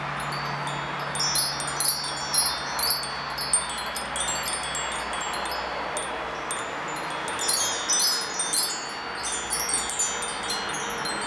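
Wind chimes tinkling: clusters of short, high ringing notes, a busy flurry in the first few seconds and another in the second half, over a steady background hiss.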